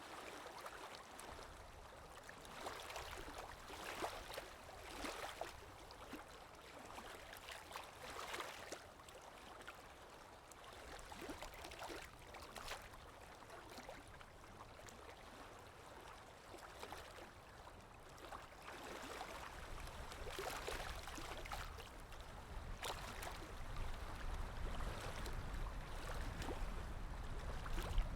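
Small Lake Erie waves splashing and washing against the shore in irregular surges, one every second or two, with a low rumble building in the second half.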